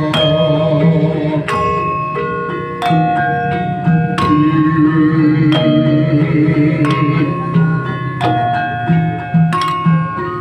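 Javanese gamelan playing in Yogyakarta style, led by bronze saron metallophones struck with wooden mallets. Ringing metal notes fall about every second and a bit, over a quicker repeating pattern of lower tones.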